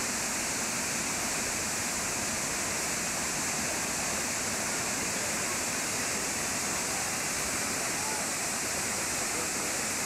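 Manavgat Waterfall: river water pouring over a broad, low rock ledge, a steady rushing that stays even throughout.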